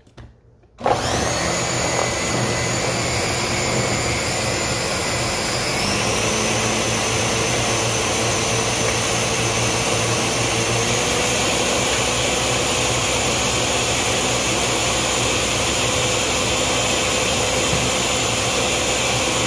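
Ninja countertop blender starting up about a second in and running steadily at high speed, blending celery and other greens with water into green juice. Its motor whine winds up at the start and rises a little about six seconds in.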